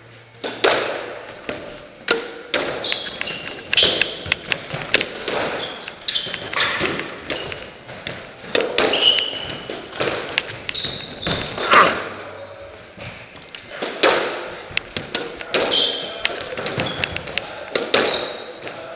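A squash rally: a quick, uneven string of sharp hits as the ball strikes rackets and the walls of the enclosed court, with short high squeaks of shoes on the wooden court floor between them.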